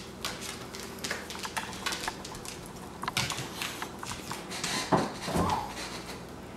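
A dog's claws clicking and scrabbling on a tile floor as it moves about. About five seconds in come a couple of dull thumps as the dog tugs the rope toy tied to the refrigerator's handle and pulls the door open.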